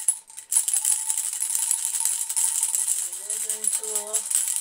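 Dense, rapid rattling and clicking of plastic and metal containers and utensils being moved about, as in rummaging for a jar, over a faint steady tone.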